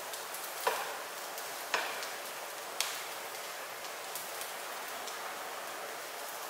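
Fried rice sizzling steadily in a hot wok, with three sharp knocks of a spatula about a second apart as rice is scooped out onto a plate.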